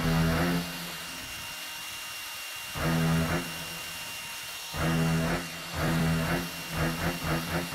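Distorted electric guitar chords on the soundtrack: single held chords at the start, about three seconds in and about five seconds in, then a rhythmic strummed riff from about six seconds in, over a steady hiss.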